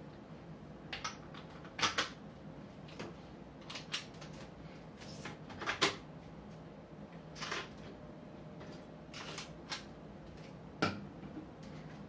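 Camera tripod hardware being handled and fitted: a quick-release clamp and head being mounted on a tripod, giving a dozen or so sharp clicks and knocks at irregular intervals.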